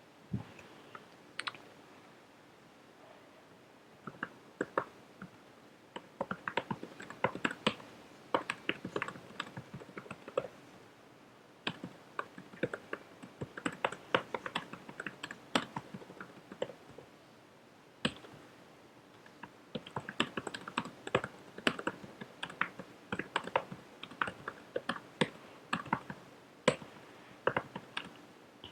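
Computer keyboard being typed on: quick runs of keystroke clicks broken by short pauses, with a brief lull about two to four seconds in.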